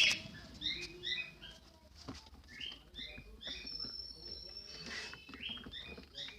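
A pet bird chirping and chattering: a quick run of short, squeaky chirps with a thin, high whistle held for about a second midway.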